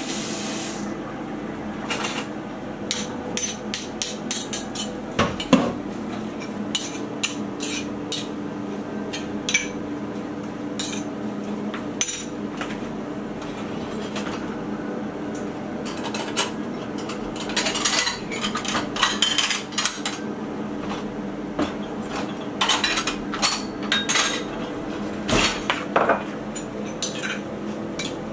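Kitchen clatter: a stone pestle knocking in a stone mortar and dishes and utensils clinking as they are handled, with dishes set into a dish rack partway through. Irregular knocks and clinks throughout, over a steady low hum.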